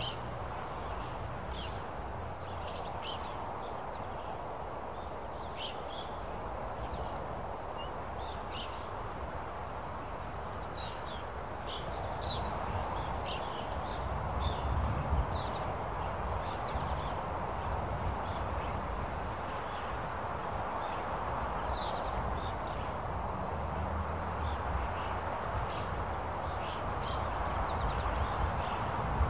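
Open-country ambience: a steady rush of wind, with many short, high bird chirps scattered throughout. The wind swells a little about halfway through.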